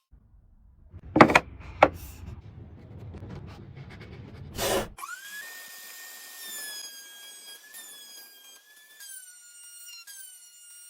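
Woodworking power tool at work: a rumbling stretch with two sharp knocks, then the electric motor whines steadily, its pitch dipping in small steps as it takes load.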